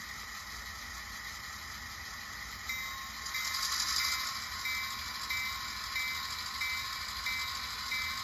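Tiny speaker of the DCC sound decoder in an N scale BNSF diesel locomotive model. A steady engine hum plays, then about three seconds in comes a brief hiss and the locomotive bell starts ringing, about one and a half strokes a second, as the model begins to move.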